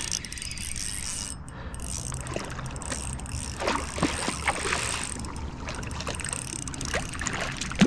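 A hooked rainbow trout splashing and thrashing at the surface in shallow water as it is played in to the bank, with a cluster of sharper splashes about midway.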